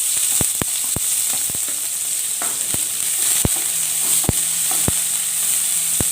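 Chopped onions frying in hot oil in a pan as they are stirred, a steady sizzle broken by about a dozen sharp pops and crackles.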